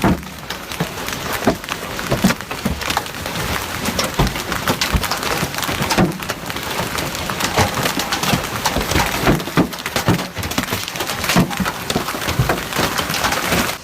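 Hailstones pelting hard surfaces: a dense, irregular clatter of impacts over a steady hiss, with many louder single strikes standing out.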